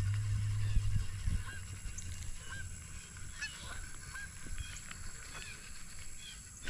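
Birds calling: short calls repeated every second or so, over a low hum that fades out about a second in.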